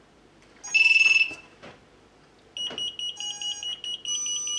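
Electronic power-up beeps from a ZMR250 quadcopter as its LiPo battery is connected. One loud, high beep comes under a second in, then from about halfway a rapid string of high beeps with lower tones mixed in. The beeps signal that the board now has power.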